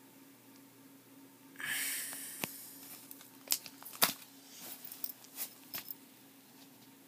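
Plastic binder pages being handled and turned: a rustling swish of the sleeves about a second and a half in, then a run of sharp clicks and taps as the page flips over and settles.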